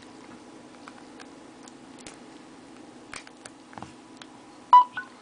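Small clicks of a micro-USB plug being fitted into a Samsung Galaxy S phone and the phone handled, then near the end a short electronic beep and a second higher one as the phone registers the USB connection.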